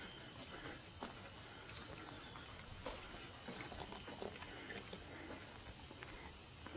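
Footsteps on a woodland trail, irregular crunches and scuffs, over a steady high-pitched chorus of insects.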